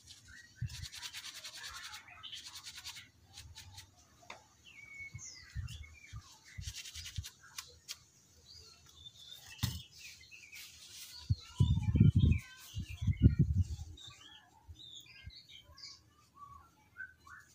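Tissue rubbing briskly back and forth over a laptop motherboard, wiping off leftover solder flux, for the first few seconds. Small birds chirp in the background, more busily in the second half, and a couple of dull low thumps come about twelve seconds in.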